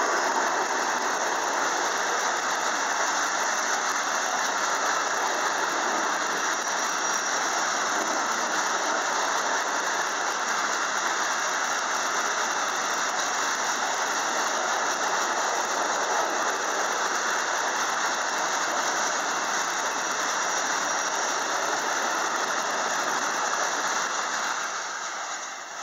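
Freight train wagons rolling past close by: a steady loud rush of wheels on rail with a high squeal throughout, dying away about 24 seconds in as the end of the train passes.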